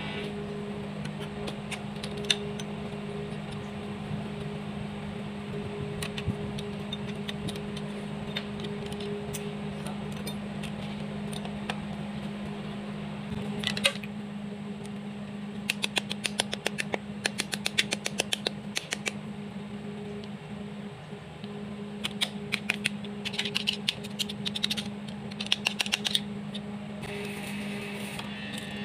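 Ratchet wrench clicking in quick runs while bolts are worked loose on a diesel engine, over a steady low hum.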